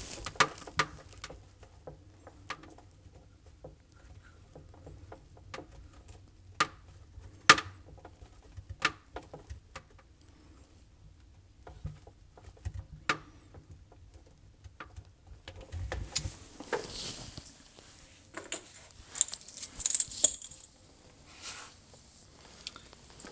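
Stripped wires of a refrigerator defrost sensor being handled and twisted together by hand: scattered light clicks and ticks, with a stretch of denser rustling about two-thirds of the way through.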